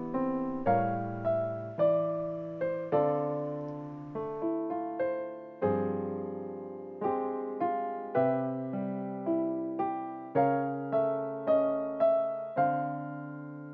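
Background piano music: a gentle, slow piece of single notes and chords, each struck and left to fade.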